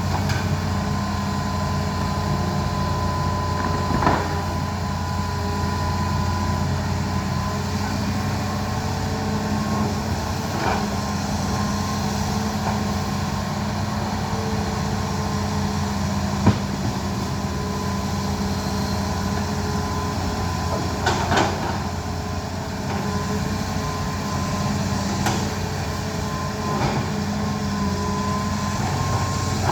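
Excavator's diesel engine running steadily at an even pitch, with a few short sharp knocks and clanks over it.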